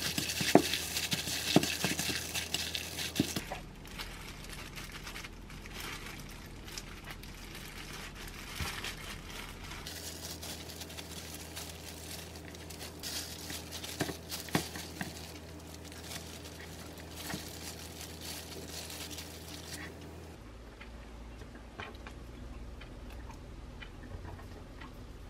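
A plastic-gloved hand squishing and mixing a chopped filling in a glass bowl, with sharp wet clicks. This gives way to quieter crinkling and rustling as soft cabbage leaves are rolled around the filling and tied with chives.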